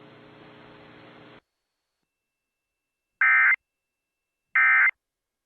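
Emergency Alert System end-of-message data bursts: two short, identical buzzy blasts of digital tone about a second and a half apart, marking the end of a weather alert. They follow a second and a half of faint broadcast hiss and a moment of silence.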